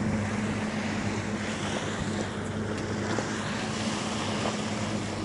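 Boat motor running steadily with a low, even hum, over wind and water noise.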